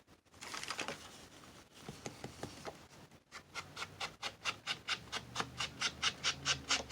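Ink pad rubbed along the edges of paper to distress them, giving quick scratchy rubbing strokes. A few irregular rubs come first, then from about three seconds in a steady rhythm of about four to five strokes a second.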